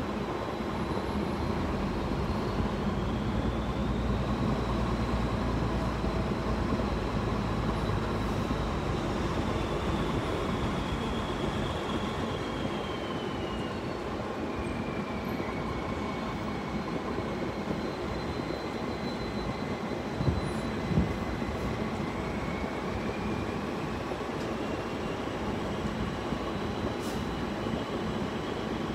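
Steady rumble of engine and road noise inside a moving car's cabin, with a faint whine that rises and falls in pitch. Two short knocks come about twenty seconds in.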